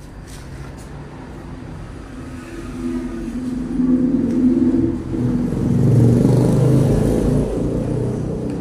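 A motor vehicle's engine passing close by, rising in loudness for a few seconds and then fading away.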